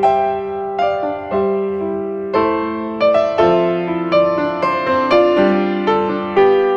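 Slow, gentle piano music: single notes and chords struck about every half second and left to ring and fade.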